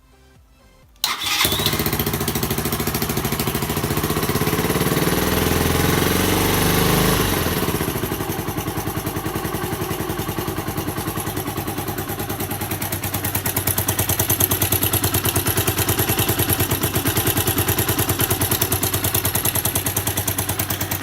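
Suzuki DR125's single-cylinder engine starting about a second in, running fast at first and then settling to a steady idle about seven or eight seconds in. It is being run to check the freshly gummed exhaust joint for leaks and to let the exhaust gum set.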